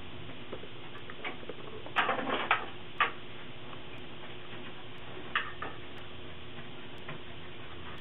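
Irregular sharp plastic and metal clicks and taps from hands fitting a ribbon cable and parts inside a computer case, with a quick run of clicks about two seconds in and single ones after, over a steady hiss.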